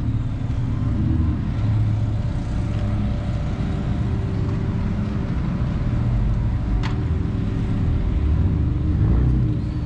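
Steady low rumble of a car engine running at idle, with a single short click about seven seconds in.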